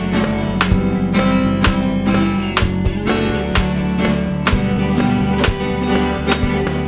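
Instrumental music: guitar over a steady beat of about two strikes a second.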